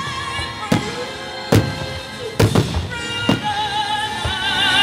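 Aerial firework shells bursting with sharp bangs, about five of them, two close together about two and a half seconds in, over music.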